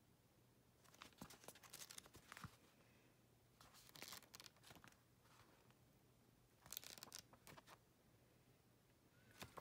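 Faint rustle of paperback book pages being flipped and turned, in three short bouts: about a second in, around four seconds and around seven seconds.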